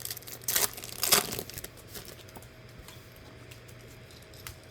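Trading card pack wrapper crinkling and tearing open: two rustling bursts in the first second and a half, then faint handling clicks.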